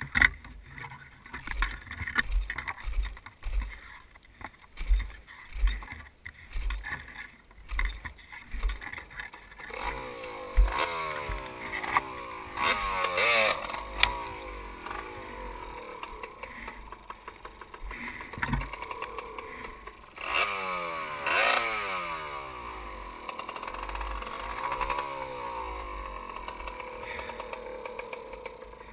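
Dirt bike engine being ridden over a rough bush trail, its pitch rising and falling again and again as the throttle opens and closes. For the first ten seconds the engine is faint under a string of low thumps and knocks from the bike jolting over bumps.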